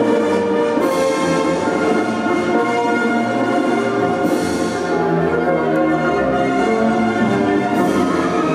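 Orchestral music for a polonaise, with brass prominent, playing a steady, stately melody. A bright splash of high sound comes three times, about three and a half seconds apart.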